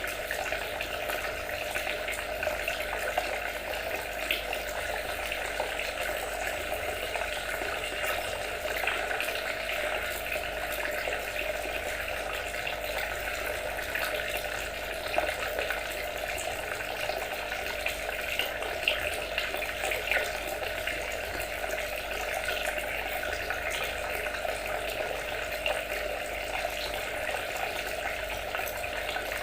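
Water trickling steadily, with small splashes now and then.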